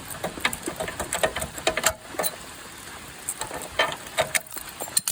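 Rain pattering on a nearby surface, with irregular sharp drips and taps, a few of them louder knocks.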